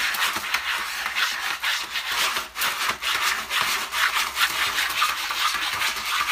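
Cat digging in a plastic litter box, its paws raking through rod-shaped litter pellets and scraping the tray bottom in a run of quick, repeated scratchy strokes.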